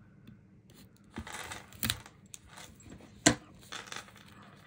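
Scissors cutting into plastic or paper packaging: a few crisp snips and rustles, with one sharp click about three seconds in that is the loudest.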